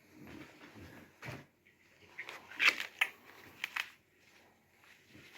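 Gear being handled: soft rustling, then a few sharp clicks and scrapes of plastic and fabric a little past halfway.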